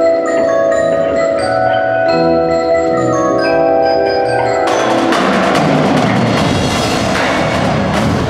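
Percussion ensemble music. Mallet keyboards such as marimba and chimes play held, ringing chords, and a bit past halfway the marching drum line comes in suddenly with loud, rapid snare and tenor drumming over them.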